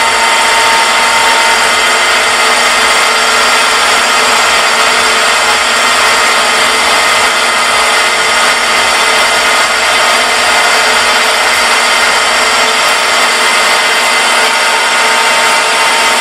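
Metal lathe running, spinning a bolt while the cutting tool is fed across its head to turn a taper: a steady motor whine over a continuous hiss of cutting.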